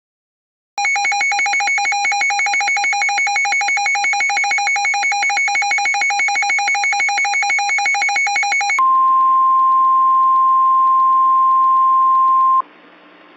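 Midland WR100 weather radio alert: a loud, rapidly pulsing electronic alarm beep for about eight seconds. It switches abruptly to the steady 1050 Hz NOAA Weather Radio warning tone, held for about four seconds, which cuts off and leaves a faint radio hiss.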